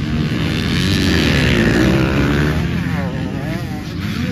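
Several motocross dirt bikes riding past, their engines revving up and down in quick rising and falling pitch. The bikes are loudest about a second and a half in.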